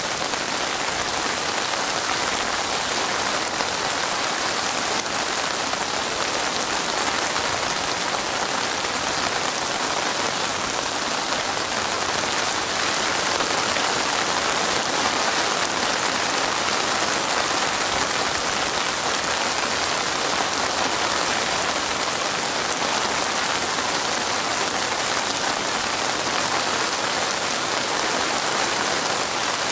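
Steady rain falling on a wet surface: an even hiss of many drops, unchanging throughout.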